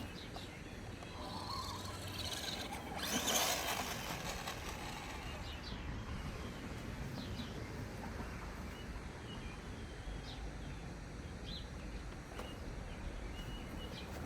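Quiet outdoor background noise with a few faint, short bird chirps, and a brief swell of noise about three seconds in.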